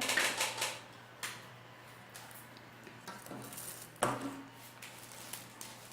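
Light knocks and clatters of small objects being handled and set down on a tabletop, busiest in the first second, with a sharper knock about four seconds in.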